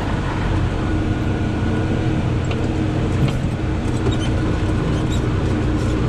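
John Deere 4640 tractor's turbocharged six-cylinder diesel engine running steadily as the tractor drives across the field, heard from inside the cab.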